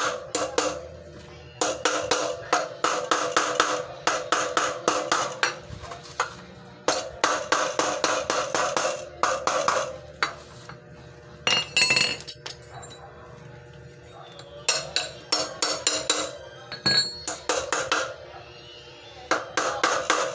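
Hammer blows on the steel sidewheel hub of a tricycle, coming in quick runs of several strikes a second with short pauses between, each ringing metallically. This is typical of driving a replacement wheel bearing into the hub.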